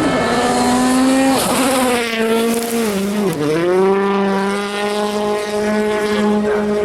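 Toyota Yaris WRC rally car's turbocharged 1.6-litre four-cylinder engine running hard. Its pitch drops sharply about a second and a half in, dips and climbs back around three seconds, then holds steady.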